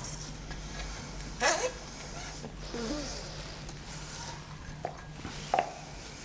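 Faint handling noises: a short rustle or scrape about a second and a half in and another near the end, with a couple of small squeaks between, over a steady low hum.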